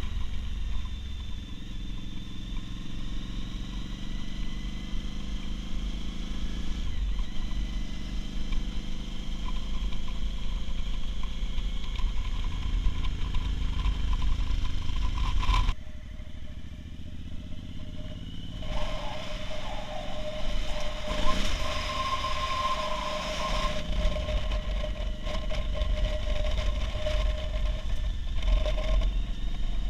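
Motorcycle engine running under way, with wind rumbling across the helmet-mounted microphone. The sound changes abruptly about halfway through, and after that steady whining tones run over the engine.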